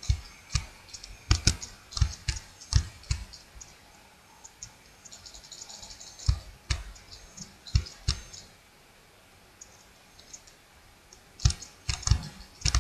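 Irregular clicks of a computer mouse and keyboard, sometimes several a second. There is a lull of about three seconds before a quick run of clicks near the end.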